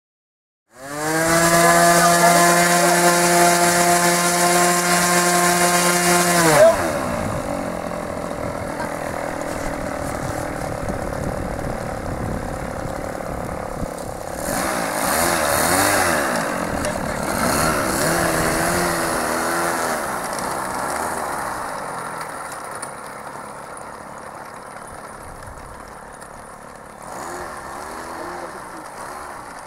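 Small two-stroke glow engine of a radio-controlled model airplane. It runs at a steady high pitch for about six seconds, then is throttled back with a falling pitch. After that it revs up and down at varying pitches, fades, and rises again near the end.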